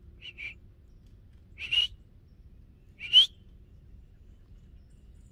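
Short high whistles: two quick chirps, then two upward-sliding whistles a second and a half apart, the last one the loudest.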